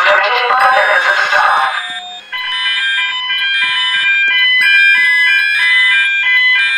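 Building fire-alarm loudspeakers: a wavering, voice-like sound for about two seconds, then a sequence of steady electronic tones stepping between pitches, two or three notes a second.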